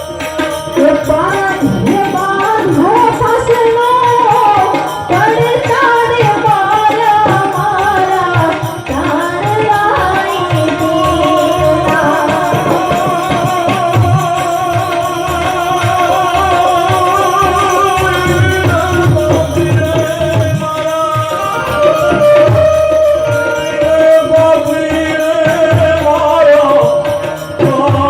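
Indian devotional-style singing with tabla accompaniment: a singer's wavering, ornamented melody over a steady, busy tabla rhythm.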